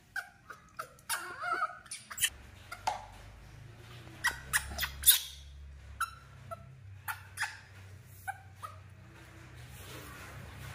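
Baby macaque giving short squeaks amid a scatter of sharp smacking clicks as it suckles from a milk bottle.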